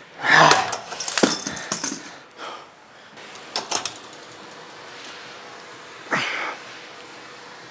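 A lifter exhales forcefully while doing cable biceps curls, once just after the start and again about six seconds in. Sharp metallic clicks and clinks from the cable machine's bar and weight stack come about a second in and around three and a half seconds in.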